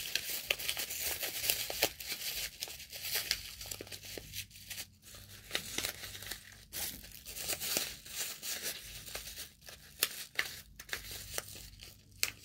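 Shredded plastic bag crinkling and rustling as it is stuffed by hand into a paper squishy, in irregular crackles that are busiest in the first couple of seconds and then come more sparsely.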